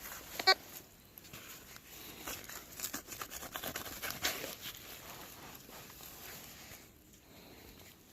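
Tesoro Mojave metal detector giving one short beep about half a second in, then several seconds of irregular faint crackling and scratching.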